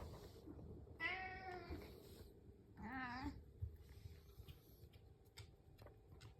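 Domestic cat meowing twice: a longer meow about a second in, then a shorter one that rises and falls, asking for its breakfast.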